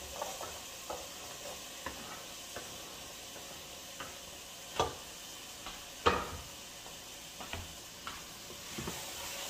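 Wooden spoon scraping diced carrots off a wooden cutting board into a pot of stew and stirring them in, with several sharp knocks of the spoon against the board and pot, the loudest about five and six seconds in. Under it, a steady sizzle from the pot.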